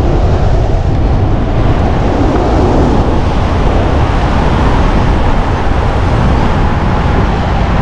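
Rush of air over a wingsuit pilot's camera microphone in flight: loud, steady wind noise, heaviest in the low end, with no breaks.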